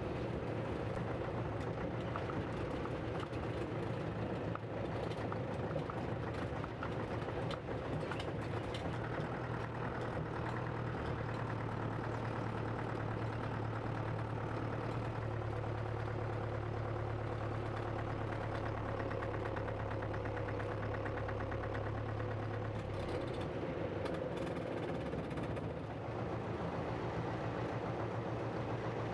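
Gardner 4LK four-cylinder diesel engine in a Land Rover Series IIA running steadily as the vehicle is driven. It is heard partly from outside and partly from inside the cab, where a steady low drone holds through the middle stretch.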